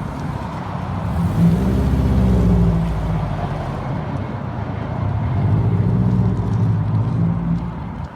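Car engine running, swelling louder twice as the revs rise and fall.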